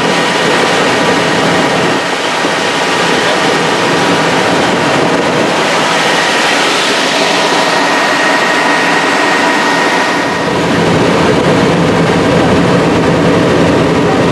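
Helicopter in flight heard from inside the cabin: a loud, steady rush of engine and rotor noise with a thin, steady high whine.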